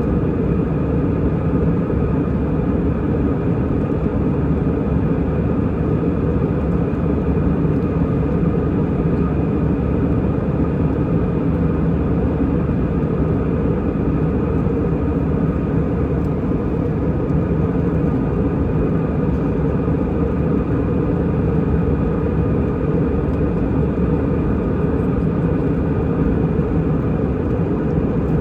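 Airbus A320 cabin noise heard from a seat behind the wing: the jet engines and airflow make a steady, loud rush with a faint whine held at one pitch.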